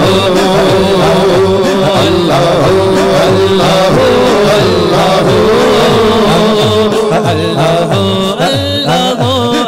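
A man sings a devotional hamd into a microphone through a sound system. His voice bends and holds pitch over a low rhythmic backing that repeats about twice a second.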